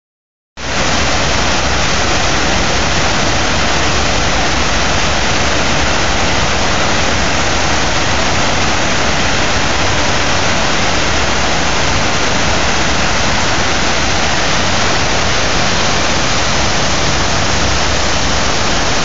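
Steady rush of the 9/11 Memorial reflecting pool's waterfall, sheets of water pouring down the pool walls into the basin, starting suddenly about half a second in and holding even throughout.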